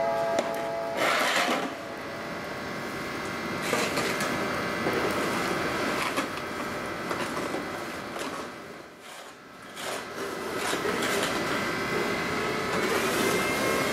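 Siemens Taurus ES64U4 electric locomotive (ÖBB class 1216) standing and running: a steady rough whir and rush from its machinery, swelling and easing a few times, with a rising electric whine coming in near the end.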